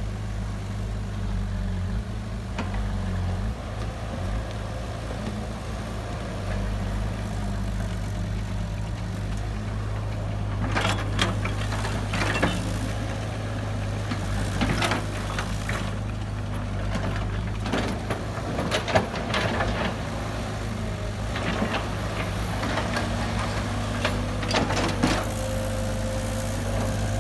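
Diesel engine of heavy earthmoving machinery running steadily with a low drone. A few short knocks and clatters break in at intervals.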